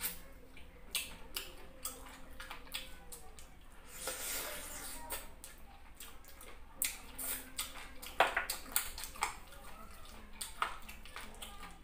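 Close-up eating sounds of chicken and fufu eaten by hand: wet chewing, lip smacks and finger sucking, heard as scattered short clicks, with a longer sucking hiss about four seconds in.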